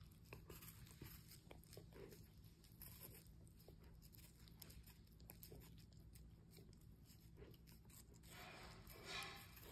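Puppy biting and chewing a slice of apple held in a hand, with faint irregular crunches and wet clicks. A brief louder noise comes near the end.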